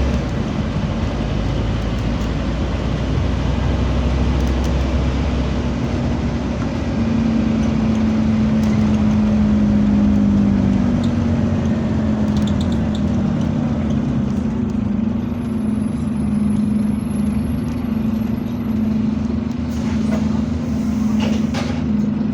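Scania bus diesel engine running steadily on the move, with a continuous low drone that shifts in pitch about seven to eleven seconds in.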